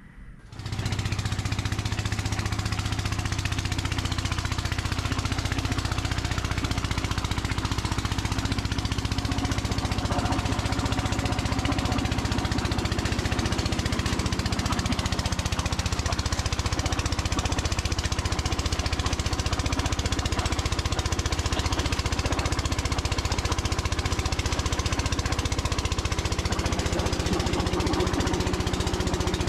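Small engine running steadily at constant speed, with a fast, even rattling vibration over it; it starts abruptly about half a second in.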